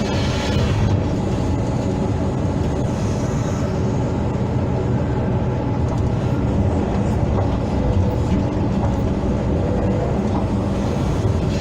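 Hydraulic excavator's diesel engine running steadily under load, a deep even drone, with a short higher hiss near the start.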